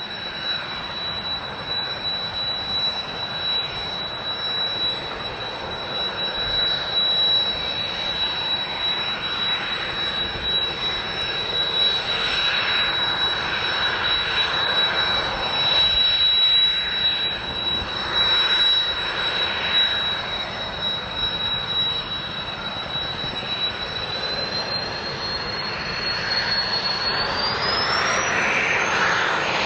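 Jet aircraft engines running with a steady roar and a high whine; near the end the whine climbs in pitch.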